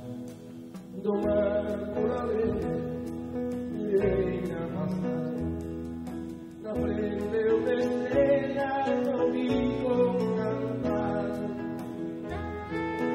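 A man singing a slow song in a live concert, accompanied by a small band with a plucked string instrument and low bass.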